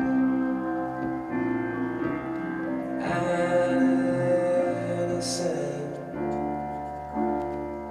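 Music playing for the dance: sustained chords with a singing voice, the harmony shifting about six seconds in.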